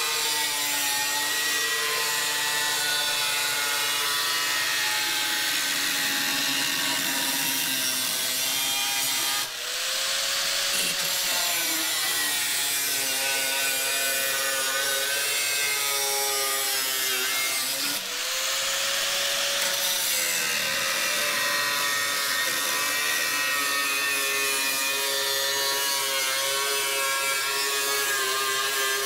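Power tool cutting into a sheet-steel firewall, running steadily with a high motor whine. Twice, about ten and eighteen seconds in, it eases off briefly and spins back up before bearing down again.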